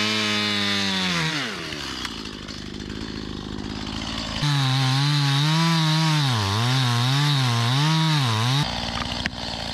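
Two-stroke chainsaw cutting into the trunk of a small chestnut tree. It runs high at first and drops back to a lower, quieter speed about a second in. About halfway it opens up again, loud, its pitch dipping and recovering several times as the chain bites into the wood, then drops off abruptly near the end.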